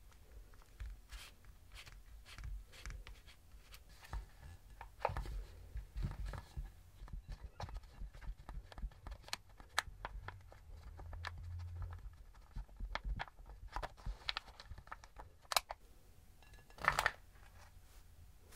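Thin plastic mold tray being handled and pressed: irregular small clicks and crackles of flexing plastic and a plastic spoon, with a louder crackly burst a little before the end, as soft sponge pancakes are pushed out onto a plate.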